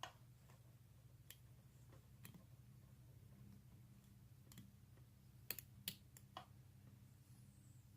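A few faint, scattered clicks of a lock pick and tension wrench working in the keyway of a vintage Yale padlock, the two sharpest about two-thirds of the way through, over a faint low hum.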